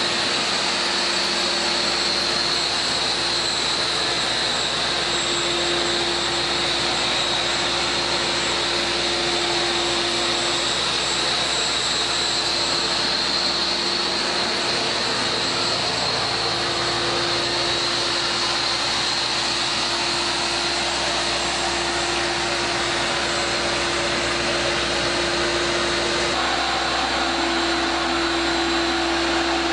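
A motor-driven machine running steadily: a continuous rushing noise with a steady hum under it, its tone shifting slightly near the end.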